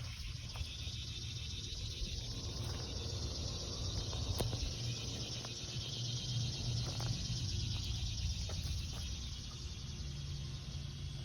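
Steady low hum of an outdoor air-conditioner unit, with crickets chirping in the background.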